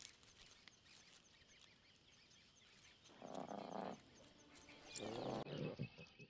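Lions at close quarters making two short, low calls about a second apart, a few seconds in, over faint, evenly repeated chirping in the background.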